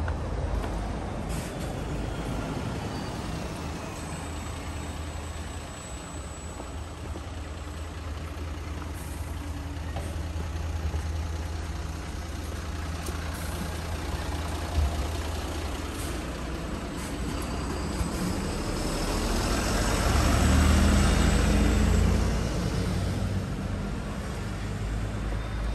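Street traffic: a steady engine rumble, with a vehicle passing close by that swells to its loudest about twenty seconds in and then fades.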